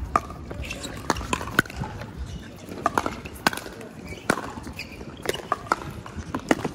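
Pickleball rally: sharp pops of paddles hitting a plastic pickleball, traded back and forth about once a second, over the background noise of an outdoor court.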